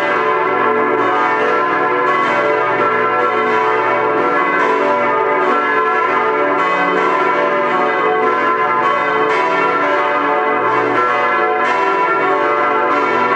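Protestant church bells ringing together in a continuous peal, their strikes overlapping so the tones hum on without a pause.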